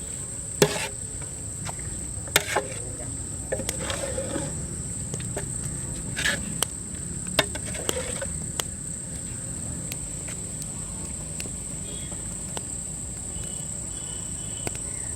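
Crickets keep up a steady high-pitched chirring, with a handful of sharp knocks scattered through the first nine seconds.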